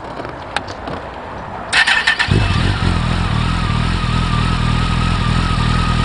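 Campagna T-Rex 14R's Kawasaki ZX-14R inline-four, fitted with Jardine slip-on mufflers, being started. A couple of clicks come first, then the starter cranks briefly. The engine catches about two seconds in and settles into a steady idle.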